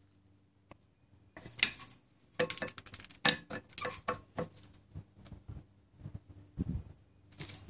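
Screwdriver tip clicking and scraping in the heads of rusted Phillips screws on a steel brake rotor: a string of short metallic clicks and taps starting about a second and a half in. The screws are rust-seized and will not turn.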